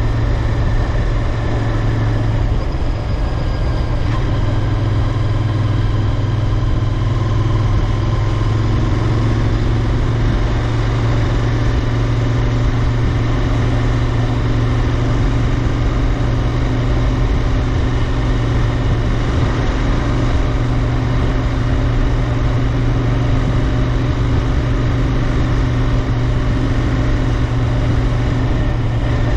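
Royal Enfield Interceptor 650's 648 cc parallel-twin engine and exhaust running steadily at an even engine speed, over a wide rushing noise.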